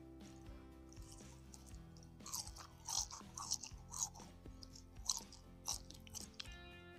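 Crunchy chewing of a crispy deep-fried gorengan snack, close on a clip-on microphone, with a run of loud crunches starting about two seconds in. Soft background music plays under it.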